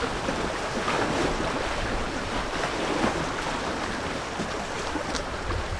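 Steady wind and choppy estuary water lapping against a concrete shore wall, with wind noise on the microphone.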